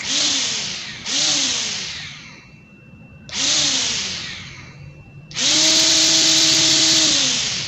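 Electric motor of a Xenon CDGT360 12-volt cordless grass trimmer, held in the hand and running with no load. It is switched on in three short blips, each spinning up and coasting down, then run steadily for about two seconds before winding down.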